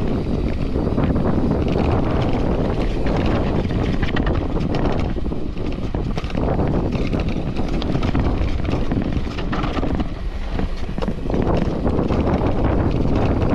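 Wind rushing over an action camera's microphone while a front-suspension mountain bike rolls fast downhill, its tyres rumbling and crackling over loose dirt and stones. It eases briefly about ten seconds in.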